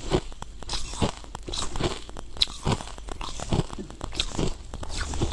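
Chewing and crunching frozen crushed ice in the mouth, many short irregular cracks and crunches.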